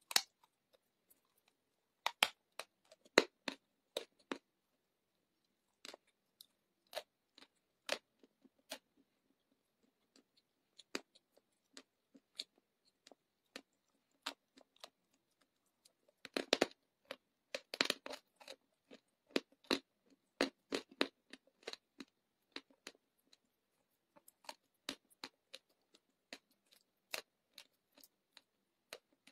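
Dry clay chunks being bitten and chewed, crunching in sharp, irregular snaps. The crunches come thickest about halfway through.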